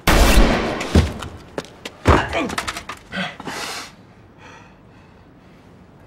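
A sudden loud crash, then heavy thuds about one and two seconds in, dying away by about four seconds in.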